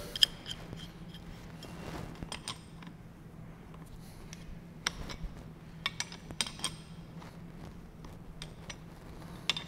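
Irregular light metallic clicks and clinks of a hand wrench tightening the 17 mm Nylock nut on a rear shock absorber's upper mount, done by feel, over a faint steady low hum.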